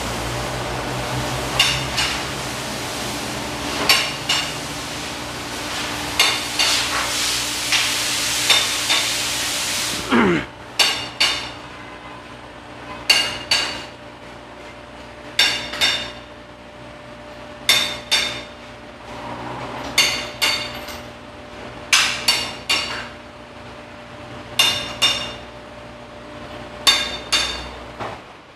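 Metal being struck with a hammer: ringing blows, singly or in pairs, about every two seconds. For the first ten seconds a steady rushing hiss runs under them: the car lift's power unit raising the vehicle. It cuts out with a falling whine as the motor winds down.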